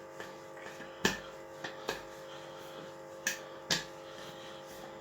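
A handful of short, sharp knocks and taps from kitchen tools and pastry work on a counter, about five in all, the loudest about a second in, over a steady background hum.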